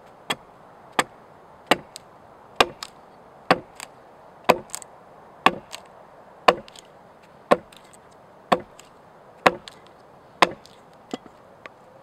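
Small axe chopping into a fresh, green wooden pole held upright: sharp blows about once a second, some followed by a lighter knock, with two lighter strikes near the end.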